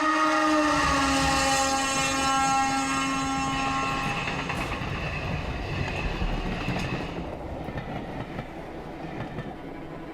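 Train horn sounding for about four and a half seconds, dipping slightly in pitch about a second in, over the steady running rumble of a moving train.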